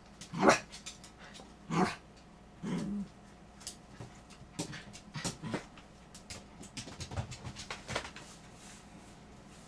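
Shih Tzu snoring in its sleep: three loud snoring breaths over the first three seconds, then a run of shorter, softer breath and clicking sounds.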